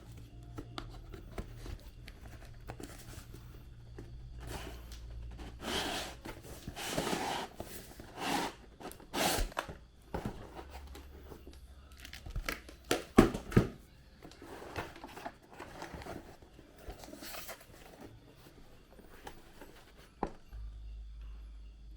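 Packaging crinkling and rustling as it is handled, in irregular bursts, with a few sharp clicks.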